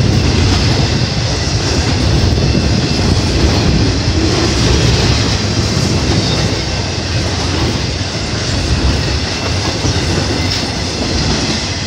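Intermodal freight train rolling past at close range: the steel wheels of its trailer-carrying flatcars running on the rails in a loud, steady rumble. It eases off a little near the end.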